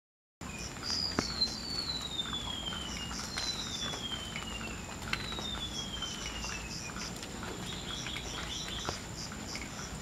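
Golden-bellied gerygone singing: three long, thin whistles, each sliding slowly downward in pitch. Behind them run a steady faint high tone and small repeated chips, with a short burst of twittering in the last few seconds.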